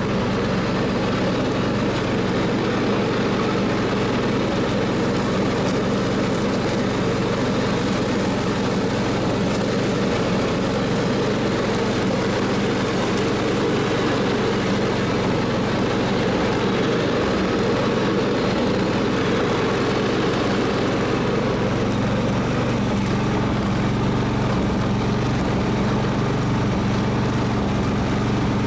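16 hp Kohler engine of a Simplicity riding mower running steadily at working speed on its newly replaced carburetor, pulling the mower over grass and weeds without bogging down.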